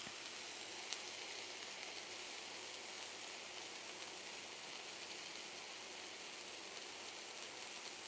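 Swordfish fillet sizzling steadily as it sears over high heat in a frying pan, its outer side already caramelized. There is a faint tick about a second in.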